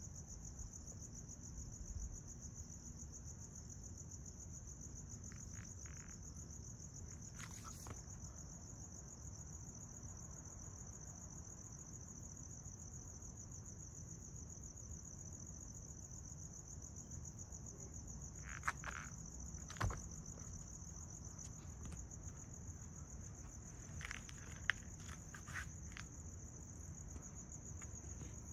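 Crickets trilling steadily at night in a continuous high chorus, over a low rumble. A few short clicks are scattered through.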